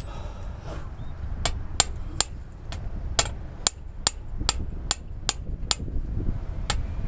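Light, sharp hammer taps on metal, two or three a second, with a short pause near the end.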